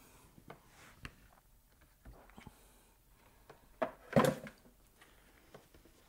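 Light plastic clicks and knocks from the Cadillac STS gear-shifter assembly being handled, with a louder knock and clatter about four seconds in.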